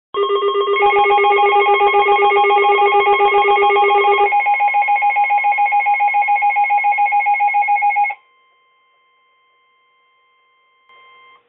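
Weather radios sounding their tornado-warning alert: rapid pulsing electronic beeps at several pitches at once. One set of beeps stops about four seconds in, the rest cut off about eight seconds in, leaving a faint steady tone before the warning message.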